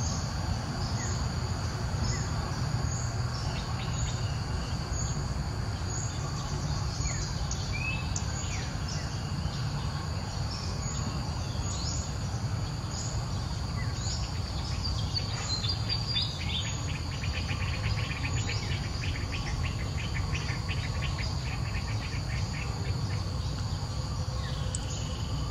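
Outdoor ambience of insects droning steadily at a high pitch, with scattered short bird chirps over it and a fast pulsed trill for several seconds in the middle.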